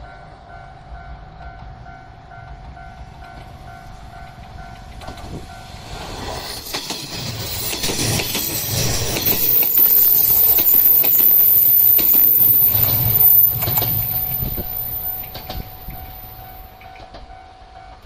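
A level-crossing alarm rings with a steady repeating tone. From about six seconds in, a 381 series 'Yakumo' limited express electric train passes close by at speed, its wheels clattering over the rail joints with a thin, very high whine, loudest a little past the middle. As the train fades, the crossing alarm is heard again near the end.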